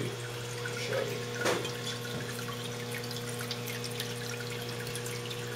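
Water splashing and trickling steadily as a submersible pump's outlet pours into a hydroponic flood-and-drain table, with a steady low hum underneath.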